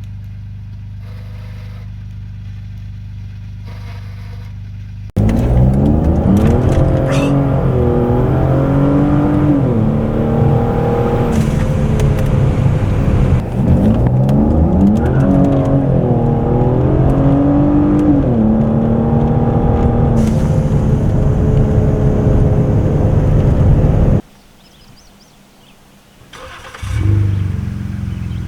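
Lincoln MKZ 3.0T's twin-turbo V6 through an exhaust fitted with electric cutouts. A steady low idle turns suddenly much louder about five seconds in, followed by repeated revs rising and falling in pitch for about twenty seconds. It cuts off abruptly near the end, and a low idle returns shortly after.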